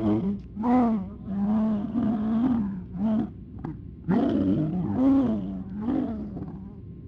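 Garbled, unintelligible voice-like groaning in about six drawn-out syllables with a short pause in the middle: a sound-effect voice straining to speak without forming words.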